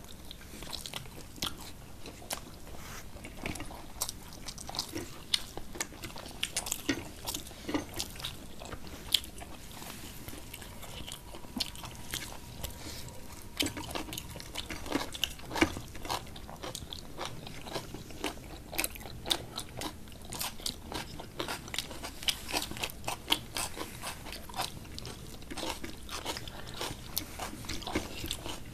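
Two people chewing and eating rice and curry with their hands close to the microphone, with many short clicks and smacks of mouths and fingers throughout.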